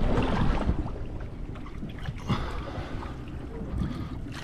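Water splashing at the side of a boat as a released roosterfish is dropped into the sea right at the start, then water lapping and gurgling against the hull.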